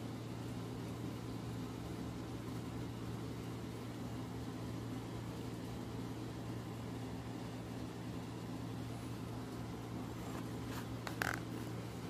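Steady low mechanical hum with a faint hiss, like a fan or motor running. A few short clicks and a brief squeak about eleven seconds in.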